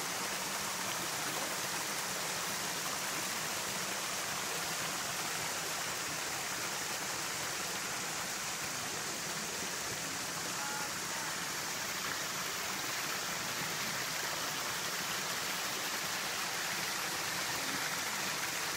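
A stream running steadily: an even, unbroken rush of flowing water.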